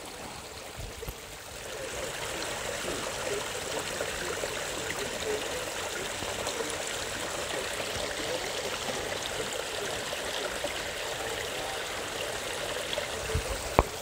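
Small forest stream trickling and splashing over rocks in a little waterfall. It is a steady rush of water that grows louder about two seconds in and then holds.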